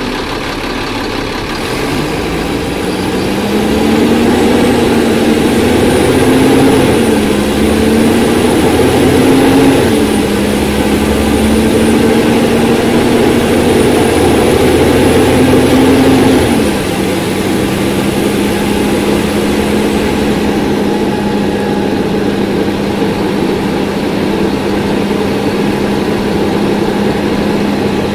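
Cummins ISC 8.3-litre diesel engine of a 2001 Nova Bus RTS pulling the bus up to speed. Its note climbs in pitch and drops back at each upshift of the automatic gearbox, about 7 and 10 seconds in. It climbs once more, then falls away about 17 seconds in and settles into a steady, quieter drone.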